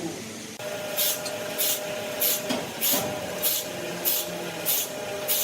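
Machinery running with a steady hum and short, evenly spaced hissing bursts, about one and a half a second, beginning about a second in.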